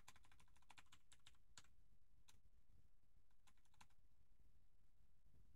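Faint computer keyboard typing: a quick run of keystrokes in the first couple of seconds, a single keystroke a little later, and a short burst just before four seconds in, then the typing stops.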